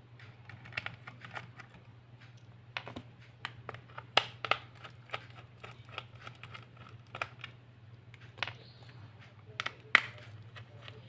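Irregular small clicks, taps and knocks of laptop drive parts and caddy being handled and pried loose by hand, with two sharper knocks about four and ten seconds in, over a steady low hum.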